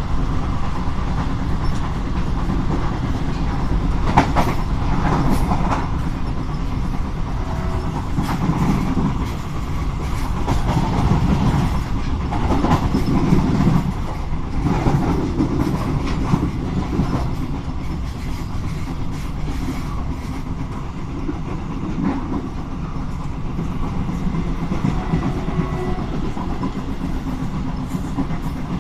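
Train running along the track: a steady rumble of wheels on rail, with irregular clicks and knocks from the running gear over the rails.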